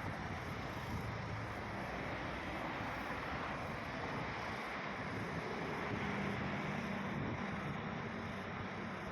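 Steady wind noise on the microphone over a background of engine noise, with a low engine hum coming in about six seconds in.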